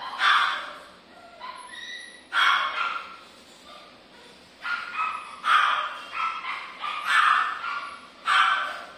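Poodle puppies yipping and barking during play: about ten short, high-pitched yaps coming in bunches.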